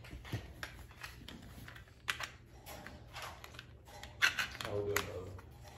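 Plastic clicks and rattles from the blue snap-together links of an Infinity Hoop weighted hula hoop being pulled apart by hand, to take a link off. There are a few sharp clicks, the clearest about two and four seconds in.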